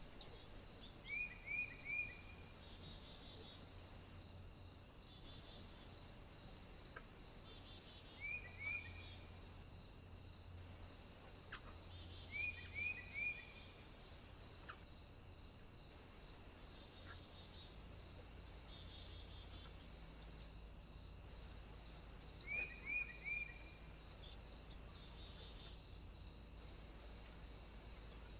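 Small bird calling in quick groups of three short chirps, repeated about four times with several seconds between groups. Under it runs a steady high hiss with a faint, regular ticking.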